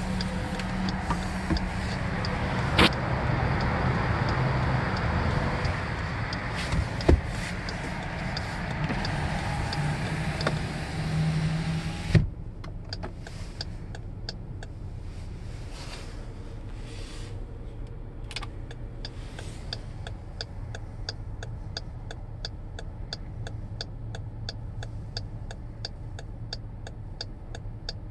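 Steady whooshing hum inside a 2017 Jeep Grand Cherokee, with a few sharp clicks; it cuts off with a click about 12 seconds in. The hazard flasher relay then ticks evenly and steadily.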